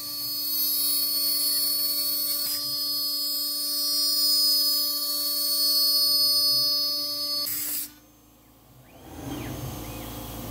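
CNC router spindle whining at full speed as its bit cuts walnut. The whine stops abruptly near the end, and after a short lull a fainter, lower hum follows.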